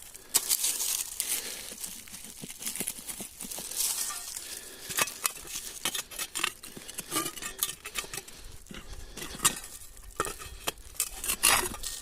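Irregular scraping, rustling and small clinks of objects being handled, in quick uneven strokes.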